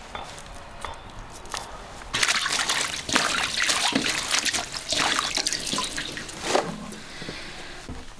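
Water sloshing and splashing in a steel basin as green onions are washed by hand, starting about two seconds in and easing off near the end.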